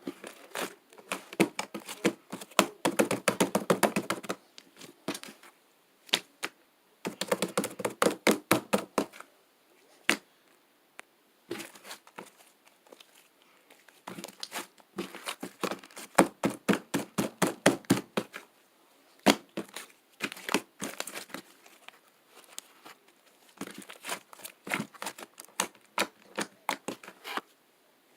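Sticky slime being squeezed, pressed and pulled apart by hand, giving runs of rapid wet clicks and pops in bursts of a few seconds with short pauses between.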